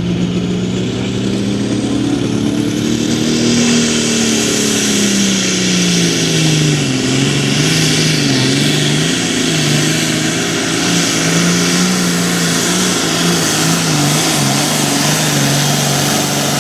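Hot Farm class pulling tractor's diesel engine under full load dragging the sled: the engine note climbs over the first few seconds, then repeatedly sags and recovers as the load bears down on it. A strong hiss builds in the upper range from about three seconds in.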